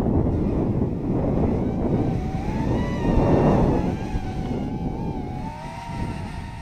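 Whine of a 130 mm Lantian quadcopter's 1306 brushless motors and propellers, its pitch gliding up and down with throttle and peaking a little past the middle, over a heavy rumble of wind on the microphone.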